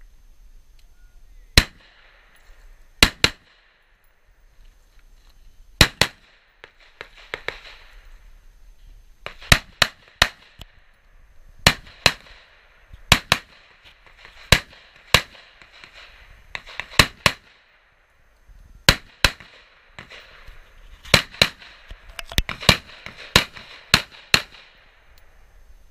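Gunshots from a shooter running a 3 Gun stage: about two dozen sharp reports, mostly in quick pairs a few tenths of a second apart, with pauses of one to two seconds between strings.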